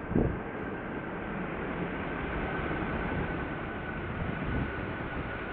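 Jet airliner's engines running as it passes on landing: a steady roar with a faint high whine that slowly falls in pitch. A brief low thump sounds just after the start.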